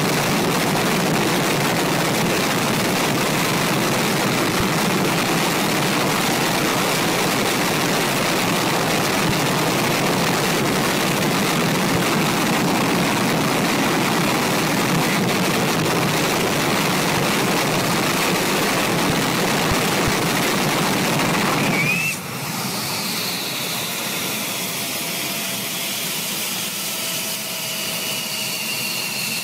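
F-16 fighter's jet engine running at full power with the afterburner lit during a ground run, a loud steady rushing noise. About 22 seconds in the power is cut abruptly and the engine winds down, leaving several turbine whines sliding slowly lower.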